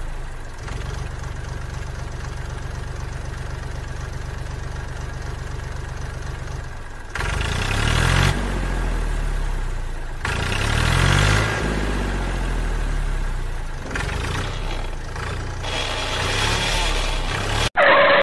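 Tractor engine running with a steady, rapid low chugging. About seven seconds in it changes to engine revving that rises and falls in pitch several times.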